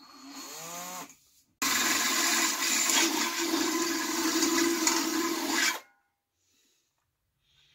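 Black & Decker cordless drill running steadily as its bit bores through the thin steel wall of a one-gallon paint can. It starts about a second and a half in and cuts off suddenly near six seconds.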